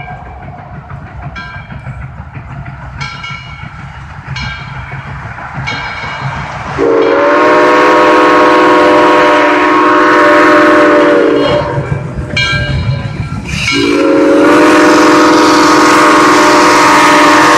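Steam locomotive whistle on a double-headed steam train, locomotives 4501 and 630, sounding a chord of several notes. A few shorter, fainter toots come in the first seconds, then a loud long blast of about five seconds. After a brief break with short toots, a second long blast runs near the end, over the low rumble of the approaching train.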